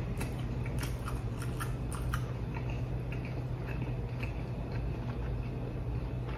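A man chewing a mouthful of karaage fried chicken with his mouth closed: irregular soft wet clicks and smacks, busiest in the first couple of seconds, over a steady low hum.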